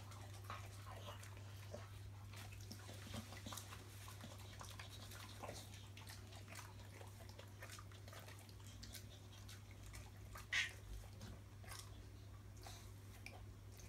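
A dog licking and chewing, with faint scattered mouth clicks and smacks and one louder smack about ten and a half seconds in, over a steady low hum.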